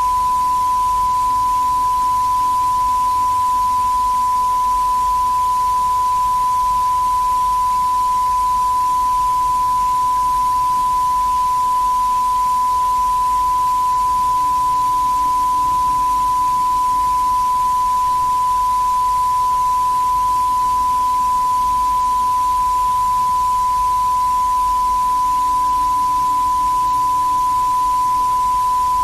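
Broadcast test tone: a single steady tone at one pitch, held without a break, over a background of tape hiss.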